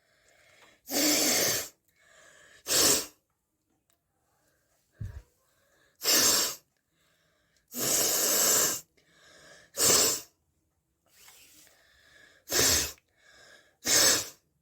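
A person sneezing again and again, seven loud bursts in all. Most come as a quick indrawn breath and then a sharp sneeze; two are longer blasts of breath. A brief low thump comes about five seconds in.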